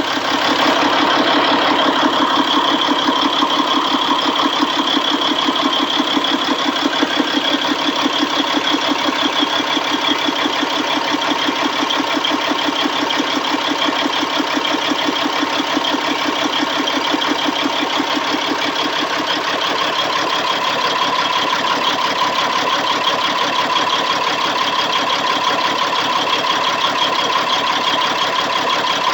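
C15 engine idling roughly: a steady, rapidly pulsing idle that continues without a break, the rough idle being the fault it shows.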